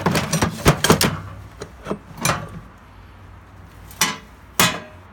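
Hard objects being moved and handled, a quick run of clattering knocks at first, then a few scattered ones, with two sharp single knocks near the end.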